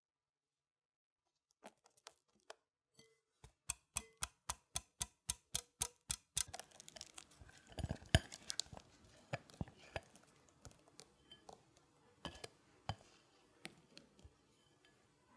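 A whisk clinking against a glass bowl in quick regular strokes, about four a second, as egg yolks are beaten. After that a soft scraping and a few knocks against the glass as the yolks are poured and scraped out of the bowl into meringue.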